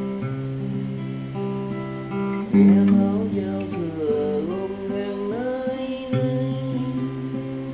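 Acoustic guitar playing slow, ringing chords. About two and a half seconds in a louder passage enters, with a melody that slides up and down in pitch for about three seconds before the steady chords carry on.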